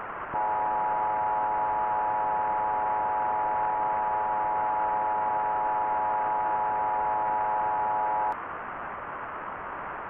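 Emergency alert attention tone: a steady chord of several pitches that starts about half a second in, holds for about eight seconds, then cuts off suddenly. Under it runs a constant radio-style static hiss, which continues alone afterward.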